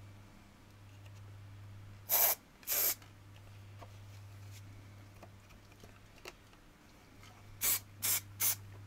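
Aerosol can of spray adhesive giving short bursts of spray: two about two seconds in, then three quick ones near the end.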